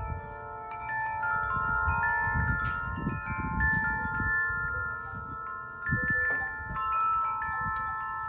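Wind chimes ringing irregularly in gusty wind, several different tones struck and left to ring and overlap, over the low rumble of wind gusting across the microphone.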